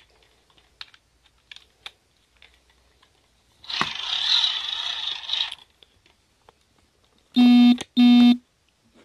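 Light handling clicks, then a noisy rush lasting about two seconds, then two short buzzing electronic beeps near the end, the loudest sounds.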